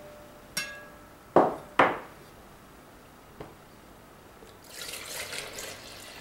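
A metal ladle clinks against a glass measuring cup, followed by two sharp knocks. Near the end, vinegar pours from the glass measuring cup into a plastic measuring jug.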